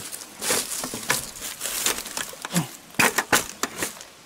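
Footsteps crunching through dry fallen leaves and twigs, an irregular run of crackles and snaps, with a few sharper, louder snaps about three seconds in.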